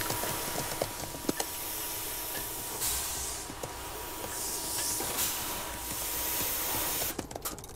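Fogging machine hissing steadily as it sprays disinfecting mist through its hose, swelling a couple of times. The hiss cuts off suddenly near the end.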